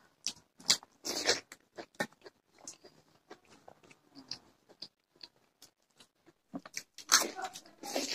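Two people eating rice and curry with their hands, heard close up: chewing and smacking mouth sounds with short clicks scattered through. They are loudest about a second in and again near the end.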